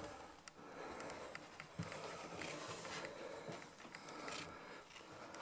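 Faint footsteps on carpet and the rustle of someone moving into an empty room: a few soft, irregular knocks over quiet room tone.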